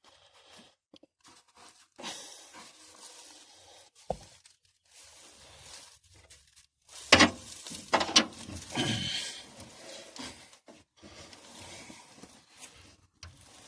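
Hand-tool and metal-part handling during starter removal: scattered clicks and scraping, with a cluster of loud knocks and clanks about seven to nine seconds in.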